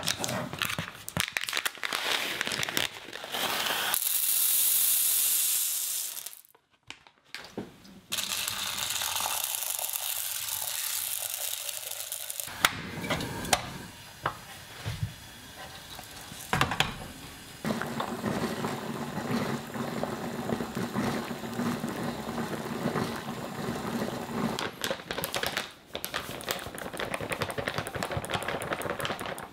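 A sequence of kitchen sounds: a plastic bag of dried adzuki beans crinkling as it is handled, then stretches of steady hissing while a gas burner is lit, and near the end flour pouring into a glass bowl.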